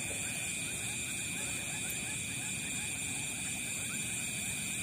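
Steady night chorus of insects, a continuous high-pitched trilling at several pitches at once, with faint short chirps scattered through it.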